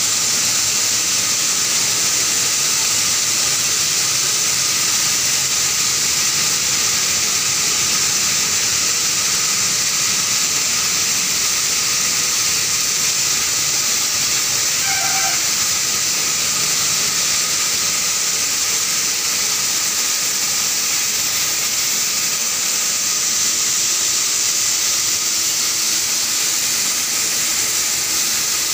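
Flour mill machinery running: a steady, loud, unchanging hiss of air and machine noise, with a faint steady hum under it. A short high tone sounds once about halfway through.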